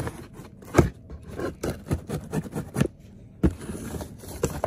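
Scissors blade drawn along the seam of a cardboard shipping box, slitting the packing tape: a run of irregular scrapes and knocks on the cardboard, the loudest just under a second in.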